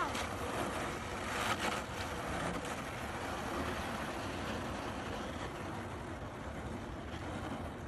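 Kayak paddle strokes dipping and splashing, with water washing along a small plastic kayak as it moves across a pond. A couple of sharper clicks come about a second and a half in.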